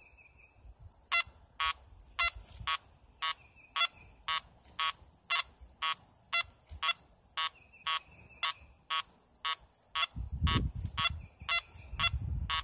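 Makro Multi Kruzer metal detector's audio: short buzzy beeps about twice a second, with a few longer, higher steady tones among them, as the coil is swept in three-tone mode at 5 kHz over a dime buried ten inches deep. A low rumble comes in near the end.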